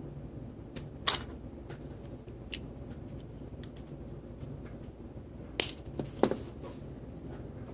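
Small sharp metallic clicks and taps as a brass verge fusee pocket watch movement and small tools are handled on a workbench, the loudest about a second in and a few more together around five and a half to six seconds. A low steady hum sits underneath.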